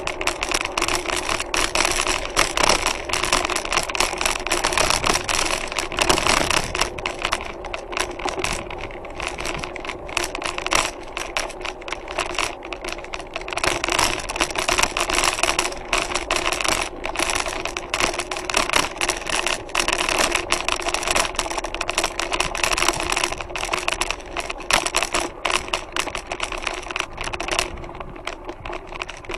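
Bicycle rattling over cobblestone paving: a dense, continuous clatter of jolts from the tyres and frame, picked up through a handlebar-mounted camera. It thins a little near the end.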